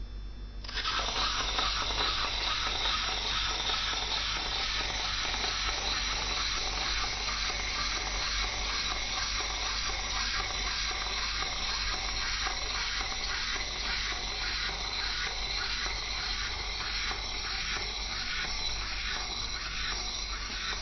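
Toy monkey running, a steady noisy whirr with an even rhythmic pulsing that starts about a second in.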